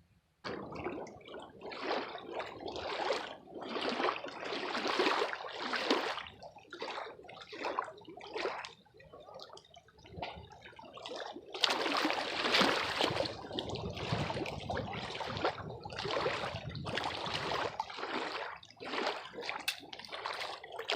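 Water splashing and gurgling, rising and falling irregularly in loudness.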